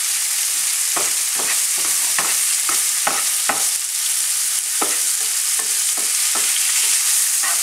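Sliced chorizo and garlic sizzling in a hot frying pan as a spatula stirs them, its strokes scraping and tapping against the pan about two to three times a second, with a short pause midway. The chorizo is frying until it browns and crisps on the outside.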